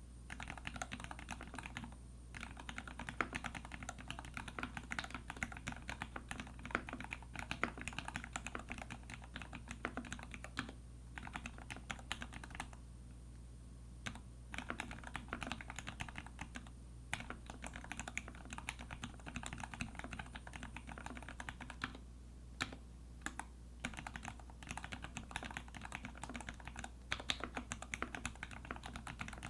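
Typing on a custom mechanical keyboard: a TX EO87 with lubed Gateron Ink Black linear switches on a brass plate and GMK keycaps. The keystrokes come in quick, continuous runs with short pauses, the longest about thirteen seconds in.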